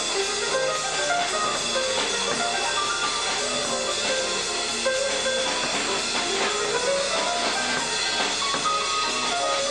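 Live small jazz band playing, with piano notes and runs over drums.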